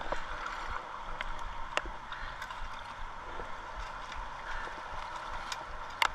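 Steady rush of river water flowing past the bank, with a few sharp clicks.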